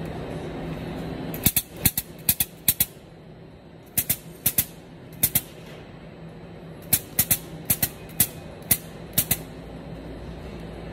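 Hand-pumped Lincoln grease gun forcing grease into a new lower ball joint's grease fitting, its strokes giving sharp clicks in quick bunches of two to eight, about twenty in all.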